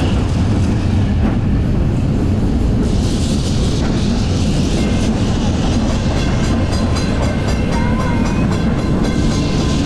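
Wellington 1906 'Big Ben' double-decker electric tram No. 47 running along its track: a steady, loud low rumble of the running gear on the rails. A faint high whine joins in from about halfway.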